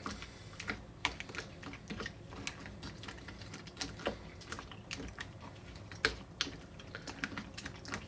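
Plastic spoon stirring a wet, gritty sand mixture in a bowl as slime powder thickens it into slime: irregular soft clicks and scrapes of the spoon against the bowl, a few louder knocks among them.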